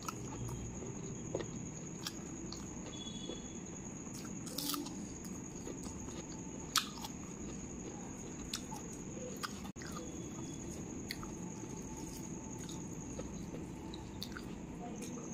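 Close-up eating sounds: chewing with scattered sharp mouth clicks and smacks, as rice and spicy chicken curry are mixed by hand and eaten. A faint steady high-pitched whine runs underneath.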